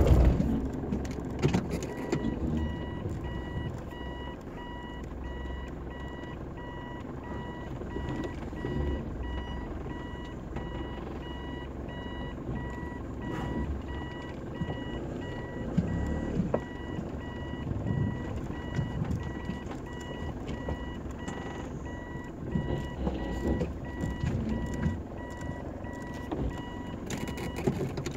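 Mitsubishi Pajero Mk2 driving over a rough dirt track, heard from inside the cab: a low engine rumble with bumps and knocks from the body and suspension. A steady, evenly repeating electronic beep starts about two seconds in and stops near the end.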